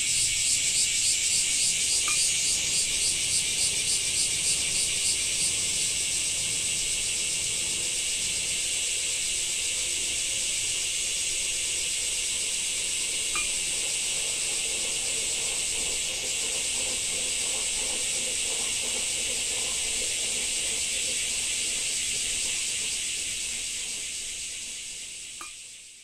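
Chorus of Japanese summer cicadas buzzing, a shrill high drone that pulses rapidly at first, then holds steady before fading out near the end.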